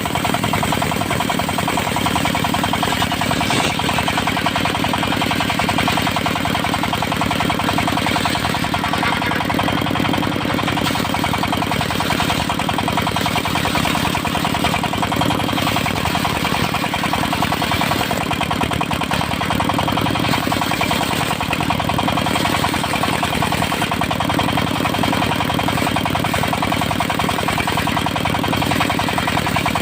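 Engine of a mobile circular sawmill running steadily, with a fast, even, knocking beat.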